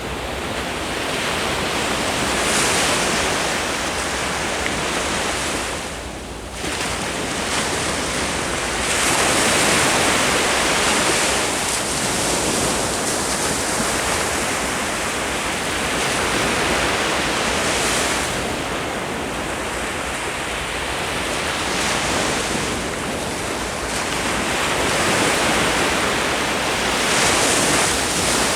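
Ocean waves breaking on the shore, the surf rising and falling in surges every several seconds, with some wind on the microphone.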